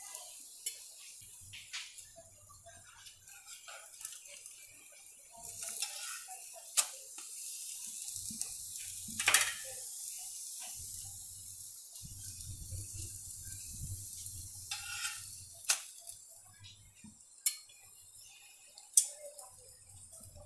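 A puda frying in ghee on a nonstick tawa with a faint sizzle, broken by several sharp clicks and scrapes of a metal spatula against the pan as the pancake is turned, the loudest about nine seconds in.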